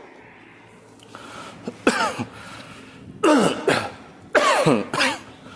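A person coughing several times in short, loud bursts, each falling in pitch, some in quick pairs.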